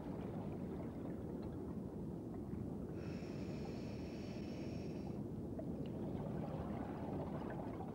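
Underwater reef ambience: a steady low rushing hiss dotted with fine crackling, the crackle of reef crustaceans. About three seconds in, a high steady tone with several pitches joins for about two seconds, then stops.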